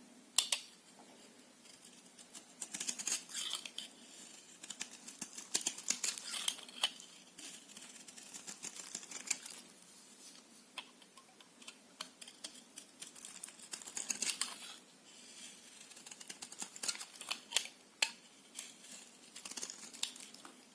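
A knife cutting through bar soap: crisp, crackly cuts in clusters every few seconds, with single sharp clicks between them.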